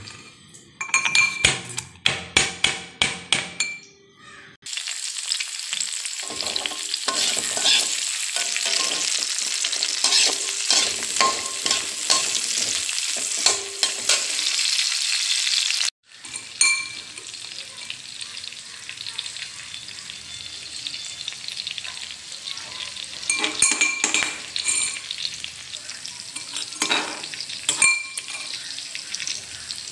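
A metal pestle pounds garlic and ginger in a metal mortar cup with quick clanking strokes for the first few seconds. Then sliced onions sizzle in hot oil in a frying pan while a slotted spatula stirs them. The frying drops suddenly quieter about halfway through, and a spoon clinks against the metal cup near the end.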